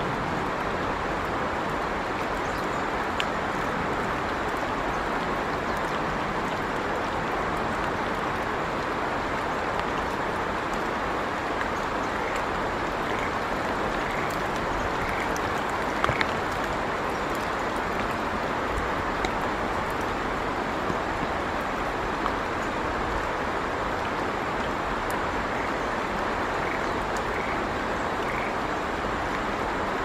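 Steady rushing noise of water. Short runs of faint high notes come about once a second, twice, and there are a few sharp ticks, the loudest about halfway through.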